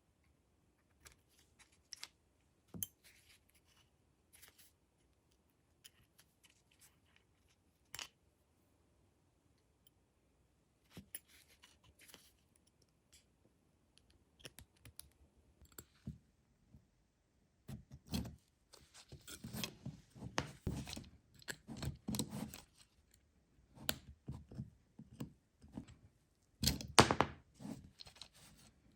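Hands working on a rusty Nagant revolver: scattered clicks and taps of small metal parts, becoming a busier run of scraping and knocks in the second half, with the loudest knock near the end.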